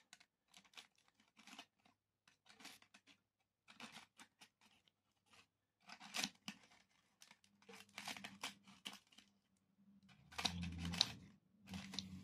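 Dry leaf litter crackling and crinkling as it is handled and torn up, a faint run of short irregular crackles that grows louder about ten seconds in.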